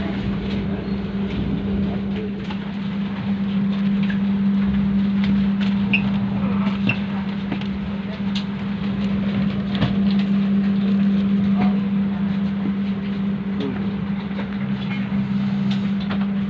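Steady low hum at one fixed pitch inside a passenger train carriage, with scattered knocks and clicks as passengers move along the aisle with their bags.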